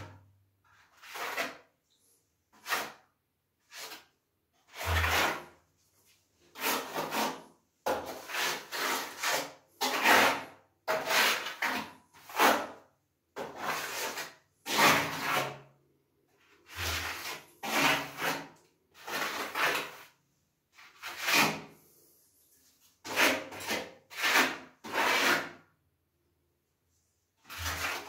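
Steel trowel scraping tile adhesive across a wall in a long series of separate strokes, each about half a second to a second long, with short pauses between.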